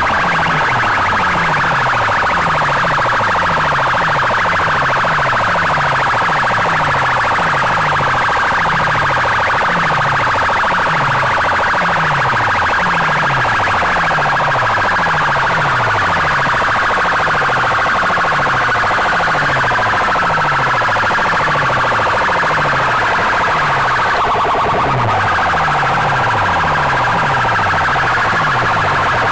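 Banks of horn loudspeakers at a sound-system competition blaring a siren-like electronic track at full volume, heavily overdriven. A low tone falls over and over in a quick, even rhythm under a wavering, wailing tone.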